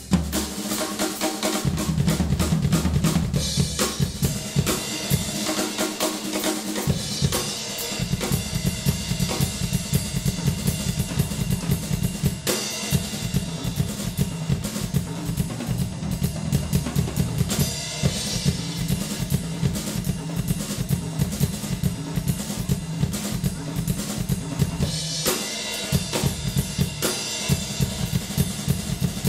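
Acoustic drum kit played with sticks: fast strokes across the snare, toms and bass drum, with cymbals.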